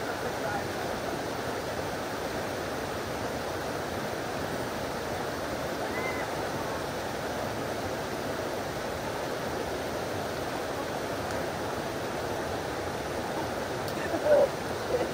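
Waterfall and creek water rushing steadily over rocks below Virginia Falls. A person gives a couple of short cries near the end.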